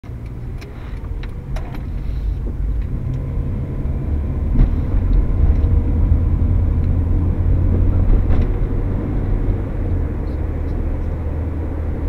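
Car cabin noise while driving: a steady low engine and road rumble that builds over the first few seconds, then holds, with a few light clicks early on.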